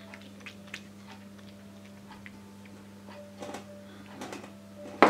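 A silicone spatula folding flour into batter in a stainless steel bowl: faint, irregular clicks and scrapes against the bowl over a steady low hum, with a sharper knock near the end.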